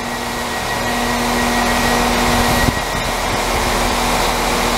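Class 195 diesel multiple unit standing with its engines running: a steady mechanical hum with a thin high whine, slowly growing louder. A low steady tone within it stops about two and a half seconds in.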